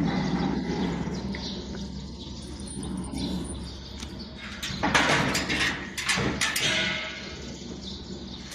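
Metal workstation parts being handled and fitted: scraping and clattering, with a cluster of sharper knocks about five and six seconds in.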